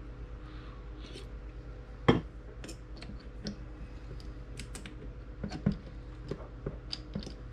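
Light clicks and taps of small parts being handled and fitted on a Mahlkönig E65 grinder motor's gear assembly, with one sharper knock about two seconds in, over a steady low hum.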